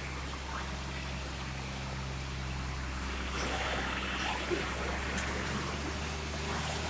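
Diesel engine of a container truck running at low revs as the rig creeps along, a steady low hum under an even hiss; the hum's note shifts slightly about three seconds in.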